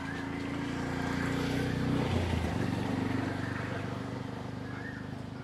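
A motor vehicle's engine running with a steady drone; it grows louder over the first two seconds, then slowly fades.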